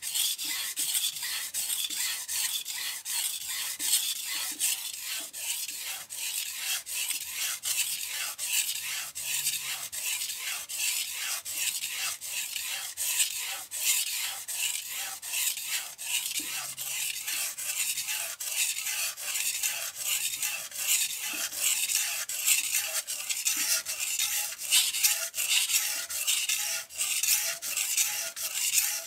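Knife blade being stroked back and forth on a whetstone: a steady rhythm of repeated gritty rubbing strokes as the edge is sharpened.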